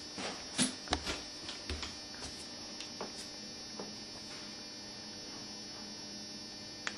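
Faint clicks and rustles of a cat climbing into a covered plastic litter box over the first few seconds, over a steady low electrical hum that then carries on alone.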